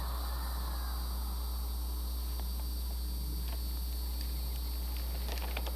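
Insect chorus, crickets trilling steadily, over a constant low hum, with a few light clicks near the end.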